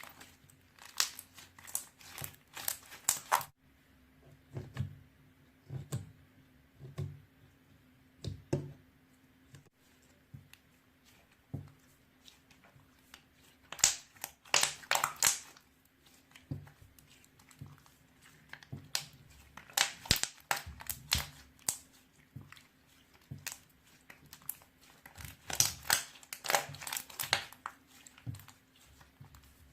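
Slime being played with by hand: repeated bursts of crackling and popping, with softer squishy thuds between them and a faint steady hum underneath.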